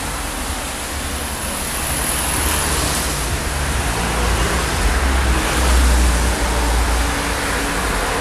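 Road traffic on wet asphalt: cars passing with a steady rush of tyre hiss, over a deep, uneven rumble.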